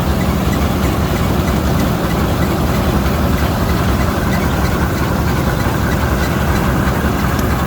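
Old Vistula KZB-3B combine harvester running steadily while harvesting grain: a loud, even engine and machinery drone that keeps the same pace throughout.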